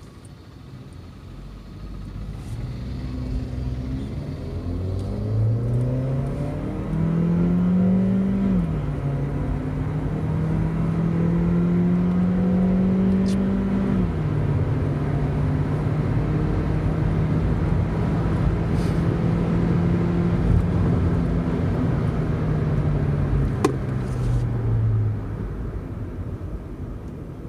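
Stage 2 tuned VW Polo 1.2 TSI's turbocharged four-cylinder petrol engine, heard from inside the cabin, accelerating hard from a standstill. The engine note climbs, then drops sharply at a DSG upshift about eight seconds in. It climbs again and drops at a second upshift about fourteen seconds in, holds steady, and falls away near the end as the car backs off.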